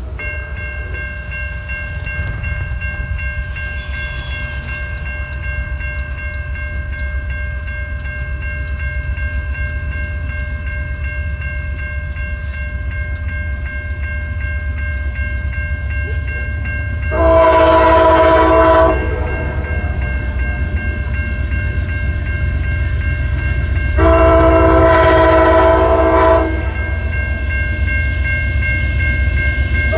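Amtrak passenger locomotive's air horn sounding two long blasts, about seven seconds apart, with a third beginning at the very end: the long blasts of a grade-crossing warning as the train approaches. Under the horn there is a steady low rumble and a steady high ringing tone.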